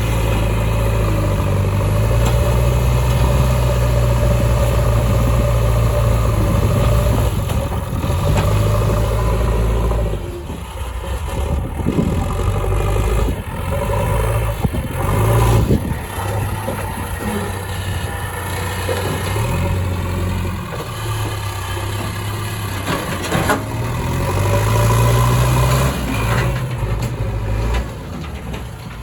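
Heavy diesel engines of earth-moving machinery running and revving up and down under load. A few sharp knocks come through, around a third of the way in, near the middle and later on.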